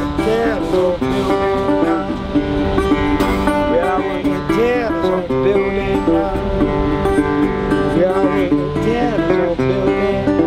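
Resonator guitar playing a blues tune, picked notes over a steady bass line.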